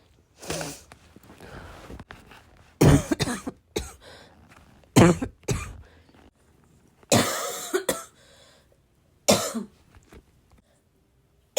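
A person coughing in repeated short fits, roughly every two seconds, some coughs coming in quick pairs and one longer, drawn-out cough past the middle.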